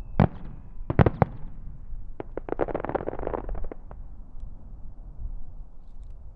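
Aerial fireworks of a starmine display: three loud shell bursts in the first second and a half, then a dense run of rapid crackling pops between about two and four seconds in, under a faint high whistle that falls slightly in pitch and fades out early.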